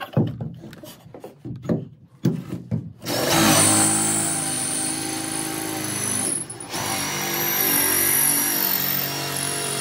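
Cordless drill with a hole saw boring through wooden framing. A few knocks come first. About three seconds in the motor starts and runs steadily under load, easing off for a moment midway before cutting on.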